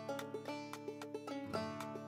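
Background music: an instrumental tune of quickly picked string notes over held low notes.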